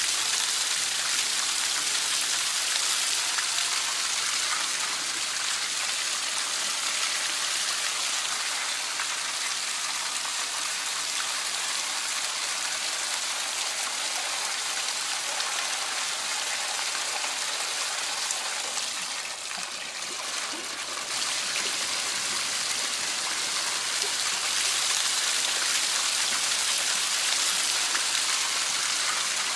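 Steady hiss of water rushing onto and across a Persian rug as it is flooded for washing, dipping briefly about twenty seconds in.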